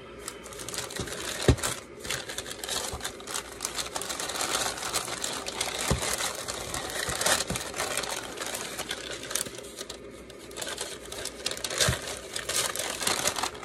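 Kraft wrapping paper being unwrapped and crinkled by hand: a dense, continuous run of rustles and crackles that eases briefly about two-thirds of the way through.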